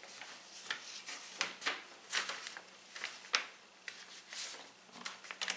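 Paper pattern pieces handled and slid across a paper sheet: a string of short, irregular rustles and scrapes.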